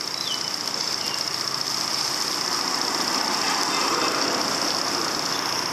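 Steady street noise, an even hiss of traffic and rolling bicycles, with a constant high-pitched whine over it.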